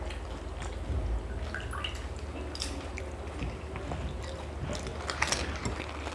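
Crisp pani puri shells being cracked open and dipped into a bowl of pani, with small splashes, drips and crackles. The loudest crackles come a little after five seconds in, over a steady low hum.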